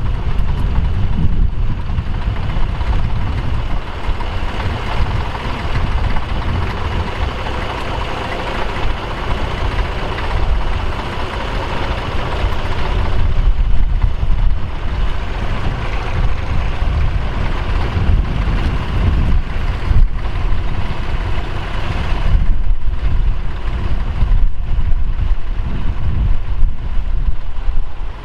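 Bukh Juno tractor's diesel engine running steadily under load as it pulls a mounted plough through the soil.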